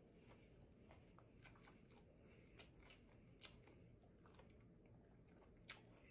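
Faint, close chewing of a mouthful of buffalo catfish sandwich, with a few soft wet mouth clicks spread through.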